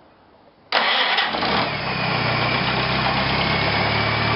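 1953 Massey-Harris Pony tractor's small four-cylinder flathead engine being cranked and starting under a second in, catching almost at once and settling into a steady idle.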